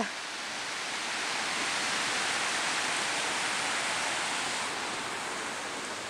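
Steady rush of a mountain river's rapids, swelling slightly about two seconds in and easing toward the end.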